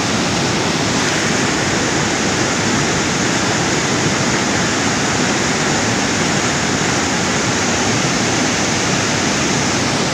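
Fast-flowing river rushing and churning over rocks, a steady loud wash of water noise.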